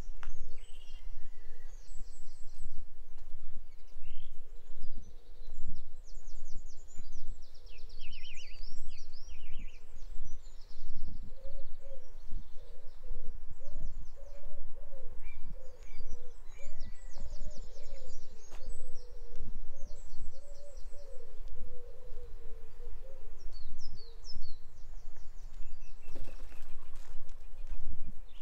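Small songbirds chirping and trilling on and off, while from about 12 seconds in a pigeon coos a run of soft repeated low notes for some ten seconds. Footsteps and a steady low rumble lie underneath.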